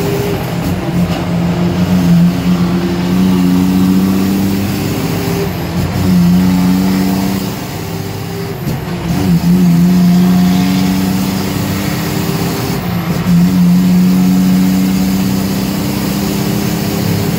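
A semi truck's diesel engine pulls steadily under load, heard from inside the cab. Its note briefly drops and picks up again about six, nine and thirteen seconds in, as gears are changed.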